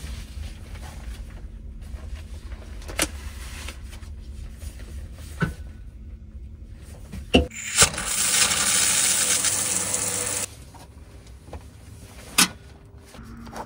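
Water spraying from a camper van's indoor shower head for about two and a half seconds, starting about eight seconds in and cutting off suddenly. A low hum runs underneath until the spray stops, with a few knocks and clicks as someone moves inside the fabric shower stall.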